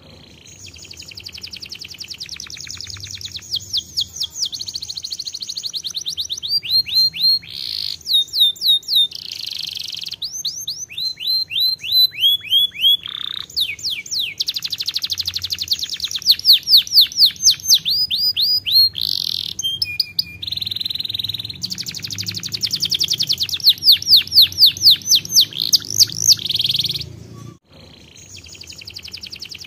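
Domestic canary singing a long, almost unbroken song of very fast trills and runs of quick sweeping notes, changing from one phrase to the next every second or two, with a short break near the end.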